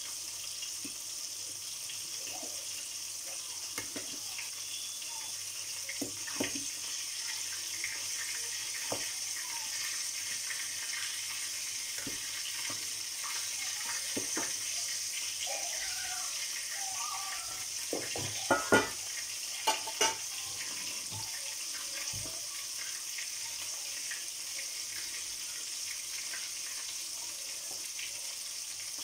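Milkfish frying in oil in a pan with a steady sizzle, while a metal spoon scrapes and knocks against a stainless steel pot of cooked rice. There are a few sharp clinks a little past halfway.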